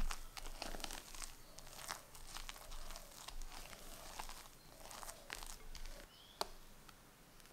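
Silicone spatula folding whipped egg whites into thick cake batter in a glass bowl: irregular soft squelches and crackles of the airy foam, several a second, thinning out near the end.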